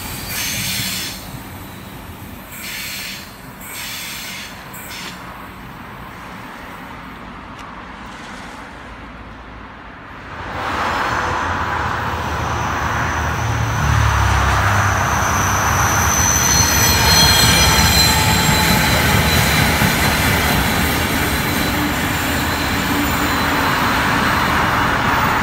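A train of heritage carriages running away along the track, with a few wheel clicks and the sound fading. Then a train hauled by two 44 class diesel locomotives passes close by: a deep engine rumble swells a few seconds in, followed by the carriages' wheels rolling with high-pitched squealing.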